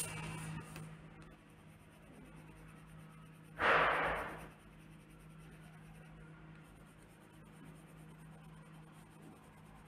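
Coloured pencil scratching faintly on a paper card as a drawing is coloured in. About four seconds in there is one louder swish, fading over about a second, as the card is turned on the table.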